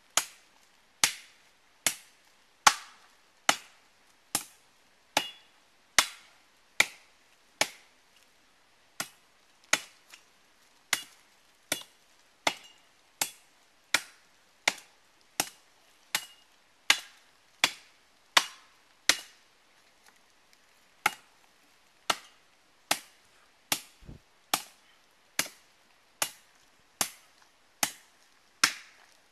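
Machete chopping into the base of a palm trunk: a steady run of sharp blows, a little under one a second, with a short break about two-thirds of the way through.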